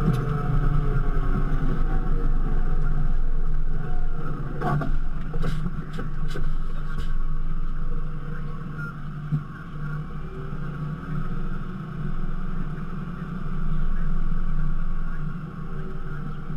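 Fendt tractor engine running steadily under way along a farm track, heard from a camera mounted on the bonnet. A few sharp clicks come about five to seven seconds in.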